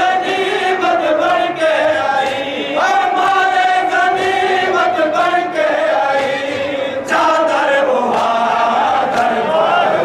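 Men reciting a noha, a Shia mourning lament, chanted loudly in long held, wavering notes, with new lines beginning about three and seven seconds in.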